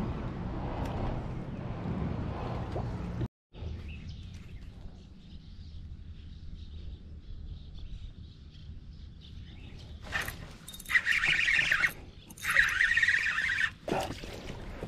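Wind buffeting the microphone and water lapping at a kayak, then after a short cut a quieter stretch. About ten seconds in come two loud buzzing bursts from a fishing reel, each about a second long, as a hooked crappie is brought in. Near the end there is a splash as the fish thrashes at the surface.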